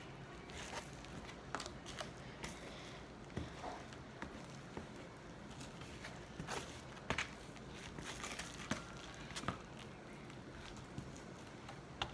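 Homemade slime being handled and kneaded by hand: scattered soft sticky clicks and crackles, busiest a little past halfway.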